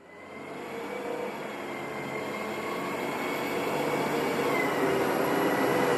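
Electric motors of a remote-controlled toy construction machine whining steadily, fading in and growing louder after a cut, with a high whine that dips slightly in pitch near the end.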